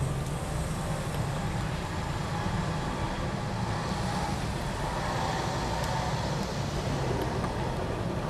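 Hi-rail Ford Super Duty pickup truck running along the railroad track on its rail gear: a steady rumble of engine and wheels on the rails.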